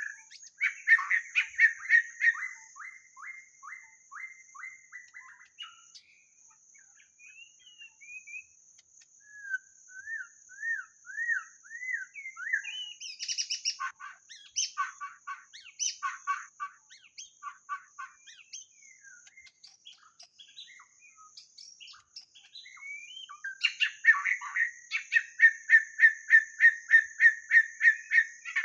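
White-rumped shama singing: varied whistled phrases with rising and falling glides, broken by fast runs of repeated notes, about five a second, near the start and in the last few seconds.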